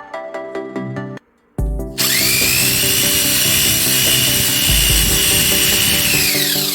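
Electric power tool running for about five seconds, its high whine rising as the motor spins up, holding steady, then falling as it winds down near the end. Background music plays underneath.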